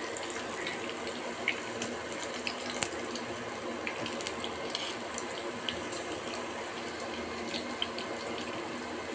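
Tuna steaks sizzling in hot oil in a frying pan: a steady hiss broken by scattered crackling pops.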